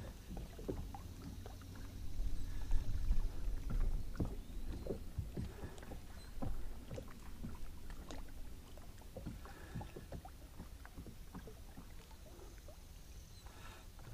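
Small waves lapping against the hull of a small fishing boat: soft, irregular knocks and splashes over a low rumble.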